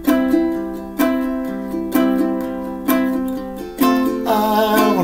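Ukulele strummed chords, struck about once a second, each chord ringing and fading before the next.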